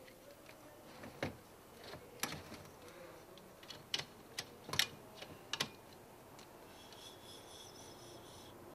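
Several sharp clicks and knocks as the Skoda Superb's factory navigation radio is pulled out of its dash slot by hand, its metal case knocking against the mounting frame. A faint high buzz comes in near the end.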